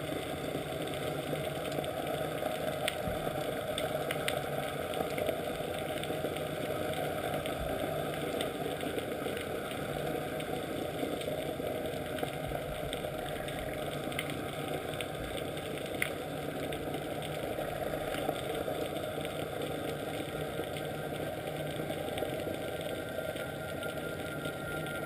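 Sightseeing boat's engine heard underwater, a steady unbroken drone.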